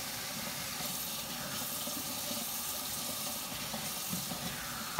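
Kitchen faucet running steadily into a stainless steel sink while a tomato is rinsed under the stream; the water cuts off abruptly at the very end as the tap is shut.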